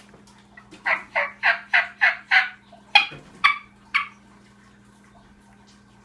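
A boy blowing a diaphragm turkey mouth call, making a run of hen-turkey yelps. Six quick yelps at about three a second are followed by three more spaced about half a second apart.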